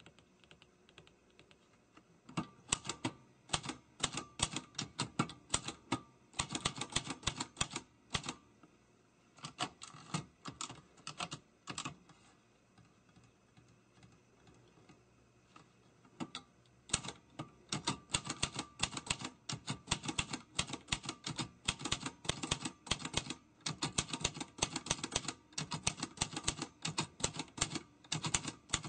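Typing on a typewriter: rapid runs of sharp key strikes, with a pause of about four seconds midway, after which the typing resumes more densely.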